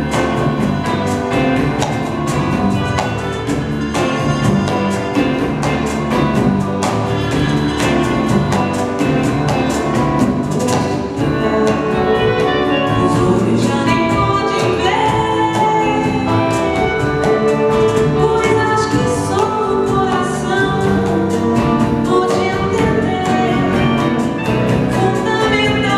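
Live ensemble music: an orchestra playing with a singing voice over it, the singing more prominent from about halfway through.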